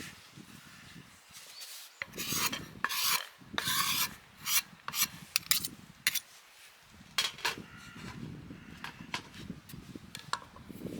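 A run of rough scraping, rasping strokes, thickest between about two and six seconds in, followed by a few sharper clicks and knocks.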